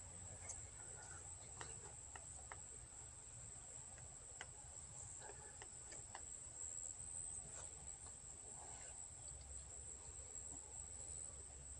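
Faint, steady high-pitched trilling of insects in the evening, with a few soft clicks scattered through it.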